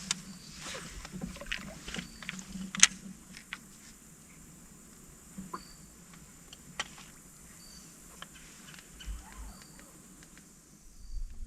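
Scattered light knocks and clicks of gear being handled aboard a fishing kayak, with one sharper click about three seconds in.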